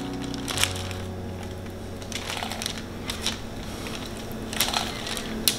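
Lemon quarters being pushed by hand into the cavity of a raw whole chicken: irregular soft crackles from the skin, the fruit and the paper underneath.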